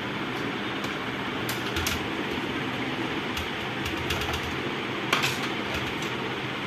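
Scattered light clicks and taps of a tool and a small circuit board being worked loose from a monitor's sheet-metal chassis, with a louder knock about five seconds in, over a steady background hum.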